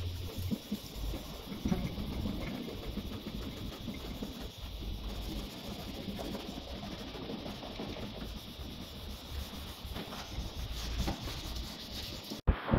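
Sandpaper rubbed back and forth by hand over a primed car door panel, a rough, uneven rubbing noise. It stops abruptly near the end.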